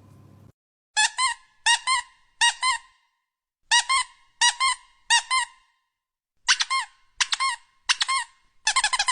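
Short high-pitched squeaks, each a quick double squeak rising and falling in pitch, repeated nine times in three evenly spaced groups of three.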